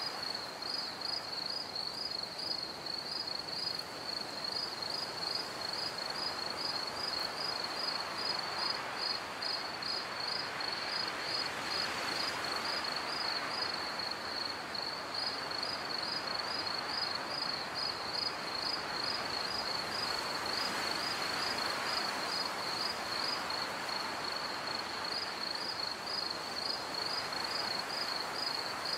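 Insects chirping: a high, rapidly pulsing trill that keeps on evenly over a soft hiss.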